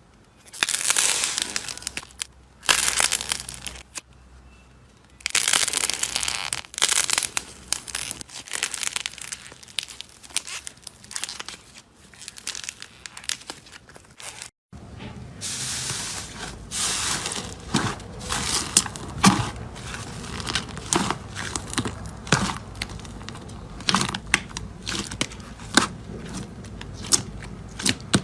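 Slime being squeezed, stretched and poked by hand close to the microphone, with crinkling, crackling and sharp little pops. About halfway through, the sound cuts out briefly and comes back as a run of quick clicking pops.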